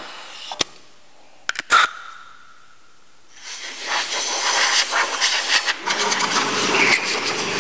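Compressed-air blow gun hissing steadily as it blows the work area clean, starting about three and a half seconds in. It follows a few short knocks in the first two seconds.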